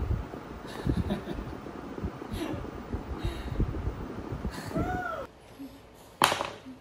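A baby making small vocal sounds while eating, with one short rising-and-falling squeal about five seconds in. After that it is quieter, with one short sharp sound near the end.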